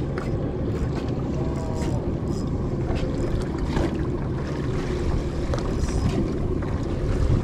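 Boat at sea: a steady low rumble with wind buffeting the microphone and scattered small knocks.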